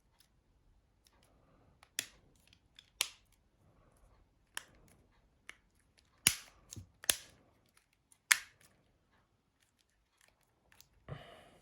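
Sharp, separate clicks and taps of small parts and tools handled on a workbench while a mobile phone is put together, about six in all, with a short scraping rustle near the end.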